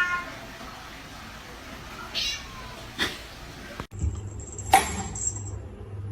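A domestic cat meowing, the call trailing off right at the start, followed by a quieter stretch with a short faint call, a few soft clicks and a sharp knock about four and a half seconds in.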